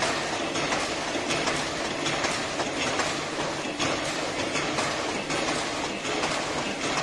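Fully automatic servo-driven face-mask production machine running, a steady mechanical clatter of rapid clicks.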